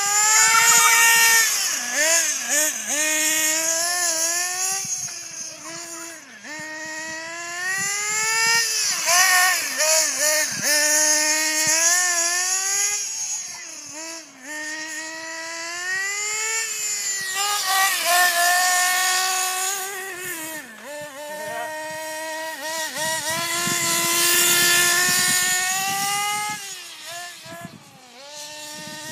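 RD Logic radio-controlled car's .21 two-stroke nitro engine: a high-pitched whine revving up and dropping back again and again as the car is driven, growing louder and fainter as it comes and goes.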